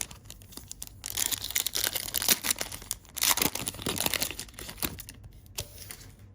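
Wrapper of a 2020 Donruss Optic Football trading-card pack being torn open and crinkled, in two loud stretches of crackling, about a second in and again about three seconds in.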